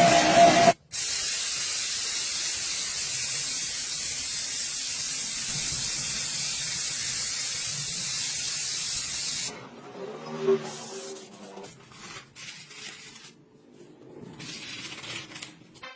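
A spray hisses steadily for about eight and a half seconds, then stops abruptly, leaving only faint, uneven sounds.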